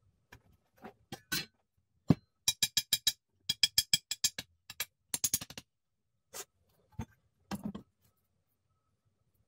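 A knock, then quick runs of sharp metallic taps, each with a short bright ring, from the polished steel hatchet head being knocked and handled as its wooden handle is fitted. A few duller knocks follow.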